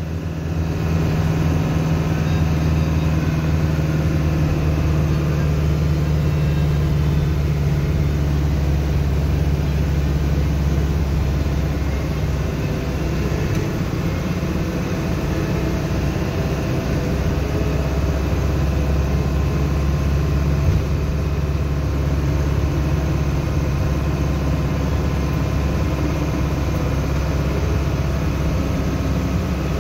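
Engine and road noise of a moving road vehicle, heard from inside the cab: a steady low drone with tyre hiss.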